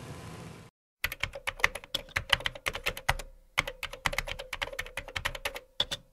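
Keyboard typing sound effect: quick, irregular key clicks starting about a second in, with a short pause about halfway through, over a faint steady hum.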